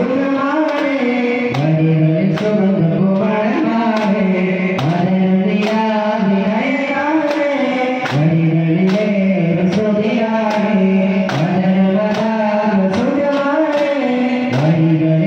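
A song sung by a single voice in long, gliding phrases over a steady percussive beat.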